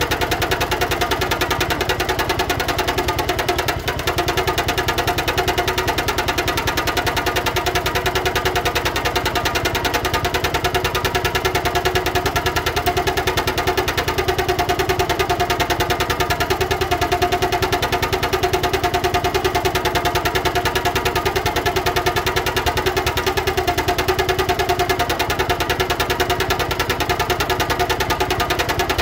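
1971 John Deere 140 H3 garden tractor's single-cylinder Kohler engine idling steadily.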